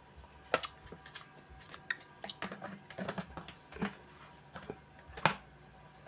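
Scattered light clicks and knocks, about eight at irregular intervals, from handling the ice-cream drum and its metal canister; the sharpest knock comes a little after five seconds.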